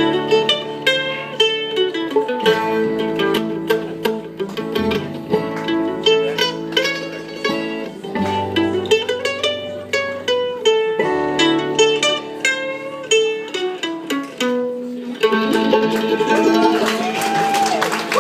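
Bluegrass band playing an instrumental passage on fiddle, mandolin, banjo, acoustic guitar and upright bass. Near the end the audience starts cheering over the music.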